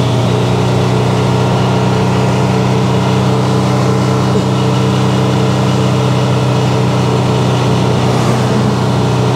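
1977 Datsun 620's 1.5-litre four-cylinder engine running at steady revs, heard from inside the cab as the truck drives slowly, held in second gear because the other gears have gone.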